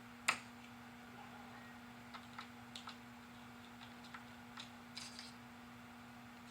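Small metal engine parts being handled: one sharp click about a third of a second in, then scattered light ticks and clicks, over a steady low hum.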